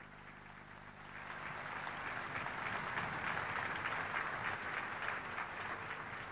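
Large crowd applauding, the clapping swelling after about a second and thinning out near the end.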